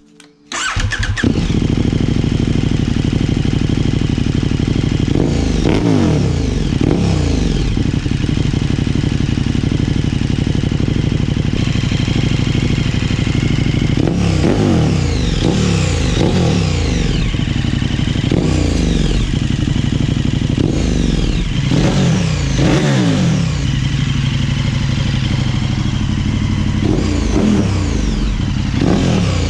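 KTM 1290 Super Duke R's 1301 cc V-twin, through an aftermarket PipeWerx WERX-GP exhaust with its baffle removed, starts about a second in. It idles between repeated blips of the throttle, each rev falling back to idle.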